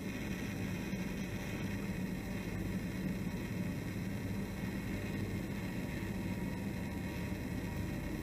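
Steady low hum under an even hiss, with no distinct events: the room tone of a small grocery shop.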